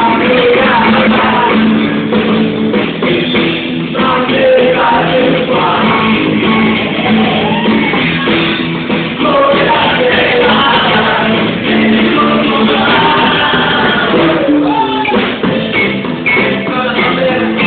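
A live amateur rock band plays a 1980s rock song: a singer over electric guitar and drums.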